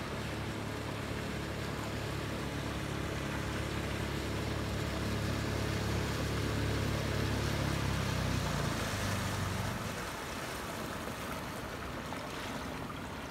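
Small outboard motor on an inflatable dinghy running steadily and growing louder as the dinghy approaches. About ten seconds in its note drops away as it is throttled back.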